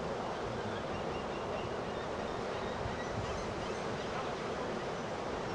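Rough, storm-driven surf breaking and washing in, a steady unbroken rush of noise.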